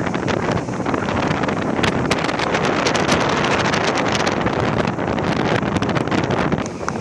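Wind buffeting the microphone, with crackles, over the steady rush of surf breaking on the beach.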